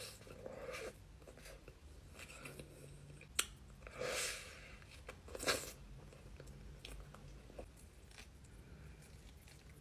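A person chewing and biting into cheese pepperoni pizza and breadsticks: irregular wet chewing with sharp clicks. The loudest bites come about three and a half, four and five and a half seconds in.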